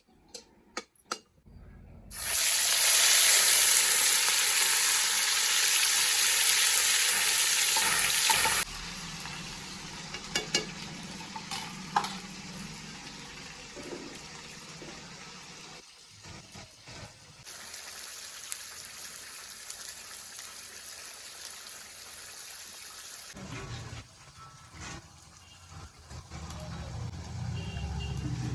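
Food frying in hot oil in a pan for the egg curry. A loud sizzle starts about two seconds in and drops back after about six seconds to a quieter sizzle, with scattered clicks and scrapes of stirring.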